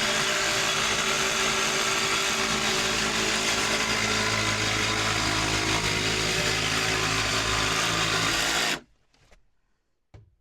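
Handheld power tool running steadily as it cuts through the wall for a window opening, then shutting off abruptly just before the end.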